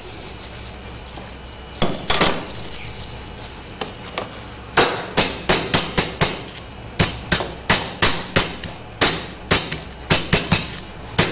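Flat-faced metal meat pounder slapping a chicken breast under plastic wrap on a cutting board, to flatten it thin. One blow about two seconds in, then from about five seconds a rapid run of blows, roughly three a second.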